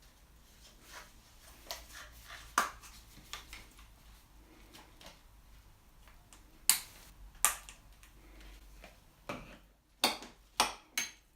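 Kitchen utensils knocking and clicking against dishes: scattered sharp clicks, a few louder knocks, and a quick run of three or four near the end.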